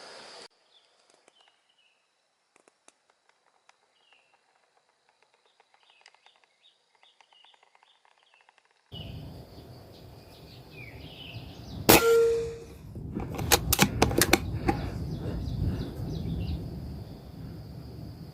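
Faint chirps of small birds over near silence. Partway through, a louder outdoor background begins. Then comes a single sharp crack of an air rifle shot, followed a second or two later by a quick cluster of sharp clicks.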